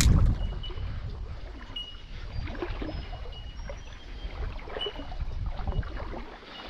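Low rumble of wind on the microphone, with a loud thump right at the start. Short high peeps from a bird repeat irregularly over it.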